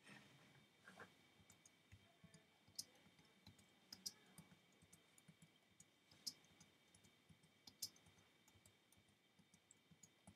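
Faint keystrokes on a computer keyboard: irregular clicks a few per second, some louder than others.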